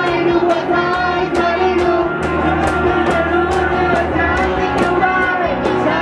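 A small live rock band playing: voices singing into microphones over electric guitar, with a steady beat of about two to three hits a second from an electronic drum pad.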